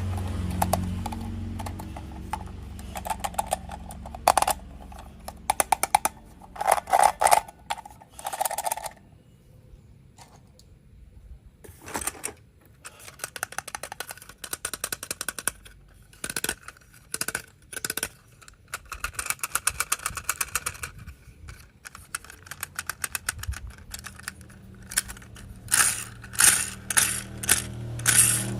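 Plastic toy train parts clicking and rattling in clusters as they are handled and fitted together, with a low hum that fades out over the first few seconds.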